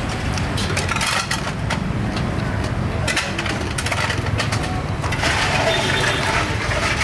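Street-stall ambience: a steady rumble of passing traffic with scattered clinks and clatter of cutlery and dishes.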